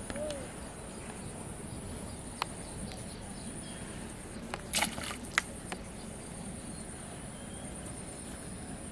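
Steady, high-pitched insect chirring. A few short clicks break through, with a brief louder clatter about five seconds in.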